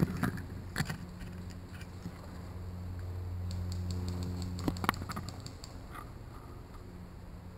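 Dry fallen leaves crackling in a few short rustles as someone shifts in deep leaf litter, over a steady low hum that swells about halfway through and then fades.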